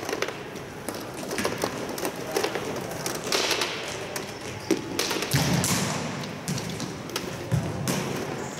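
Futsal balls being kicked and bouncing on the indoor court floor: a string of irregular thuds and taps.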